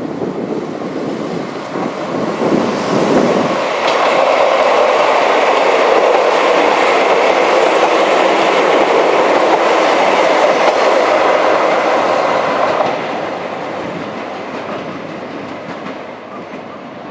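Izu-Hakone Railway 1100 series (ex-Seibu 701 series) electric train passing close by. It builds over the first few seconds, stays loud and steady for about nine seconds, then fades away near the end.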